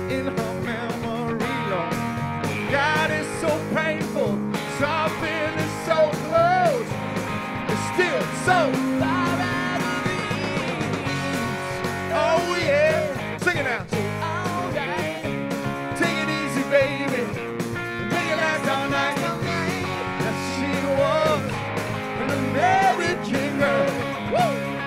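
Live band playing: a male singer over electric guitar and drums, without a break.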